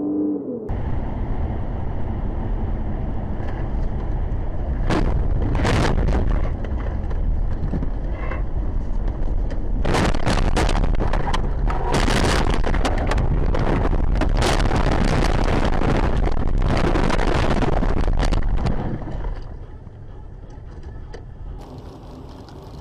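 Car road and wind rumble picked up by a dash camera while driving, with a couple of sharp knocks about five seconds in and a dense run of knocks and scraping from about ten to eighteen seconds in, after which the noise drops much quieter.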